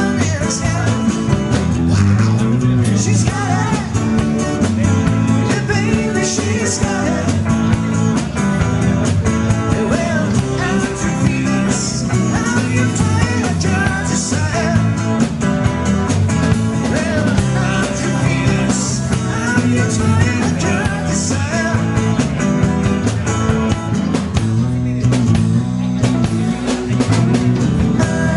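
Live rock band playing: acoustic guitar, electric guitar, electric bass and drum kit.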